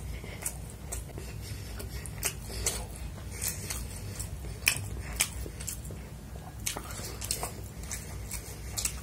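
Close-up chewing and biting while eating chicken fried rice and chili chicken by hand: irregular sharp wet mouth clicks and smacks over a faint steady low hum.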